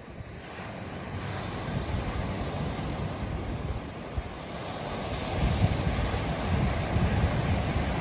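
Ocean surf washing onto a beach, swelling louder over the first couple of seconds and again about five seconds in, with wind buffeting the microphone in low gusts.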